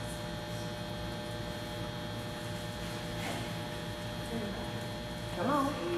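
Steady electrical mains hum with a thin high whine over it, with a brief voice near the end.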